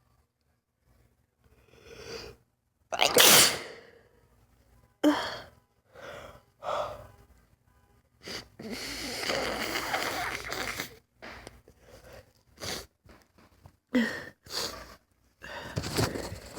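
A woman sneezing over and over in a sneezing fit: several loud, sudden sneezes with quick gasping in-breaths and sniffs between them. The fit comes on out of the blue without allergies, in her own account.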